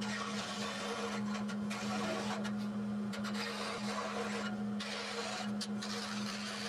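DeWalt scroll saw running with a steady hum while its reciprocating blade cuts through a thin wooden board.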